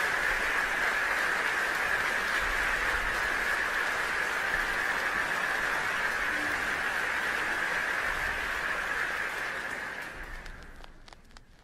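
Steady hiss with a low rumble underneath, fading out near the end into a few faint clicks.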